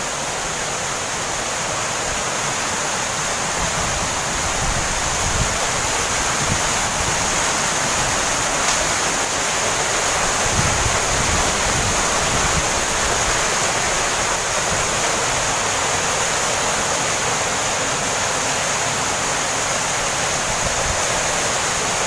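Waterfall crashing into its plunge pool: a loud, steady rush of falling water that swells a little over the first few seconds, then holds.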